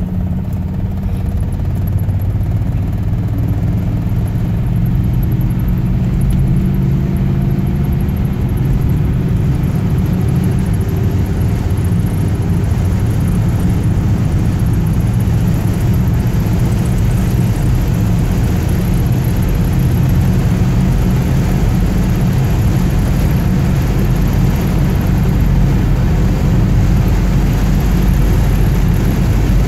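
1954 Ford Crestline driving at highway speed, heard from inside the cabin: a steady low engine and road rumble, with a faint whine that rises in pitch over the first half as the car gathers speed.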